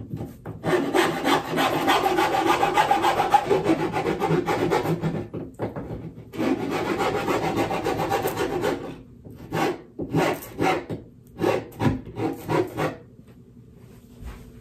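Round steel file rasping around the inside of a hole cut in a wooden desk top, widening the too-tight hole so a desk grommet will fit. Two long runs of rapid strokes with a brief pause between, then a handful of separate strokes that stop near the end.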